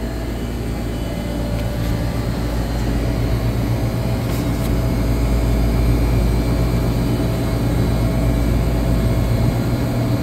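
Steady low hum of a running air-cooled chiller, its compressors and condenser fans droning with a constant pitch, growing slightly louder over several seconds.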